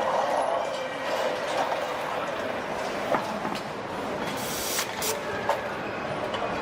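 Car assembly-line factory noise: a steady mechanical din of conveyors and machinery with scattered metallic clicks and clanks from tools and parts.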